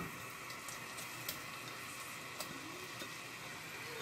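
Grated onion and garlic frying gently in a little ghee and oil in a pot: a soft, steady sizzle, with a few light clicks over it.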